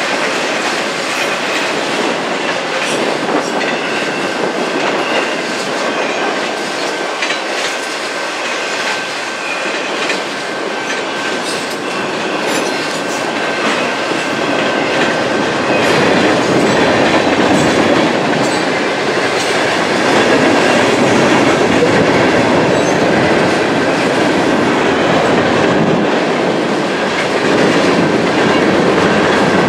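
Freight train cars rolling past, steel wheels clicking over the rail joints over a steady rumble, growing louder about halfway through.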